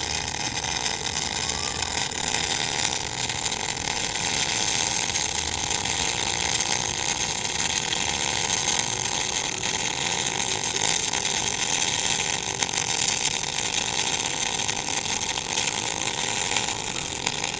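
Sanjoe NBC 500 MIG welder's arc burning steadily along a continuous bead, a constant crackling hiss. The welder is in 4T (latching) mode, so the arc keeps going with the gun trigger released.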